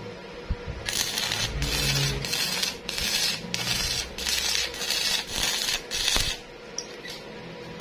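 Stick (arc) welding on a steel pipe joint: the electrode arc crackles and hisses in a run of short bursts with brief breaks. It starts about a second in and stops a little past six seconds.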